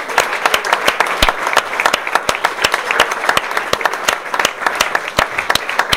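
Audience applauding: many hands clapping in a dense, irregular patter.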